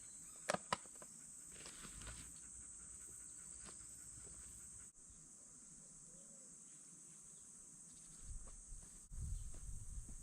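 Insects buzzing in a steady, high-pitched drone, with a few sharp clicks about half a second in and a low rumble near the end.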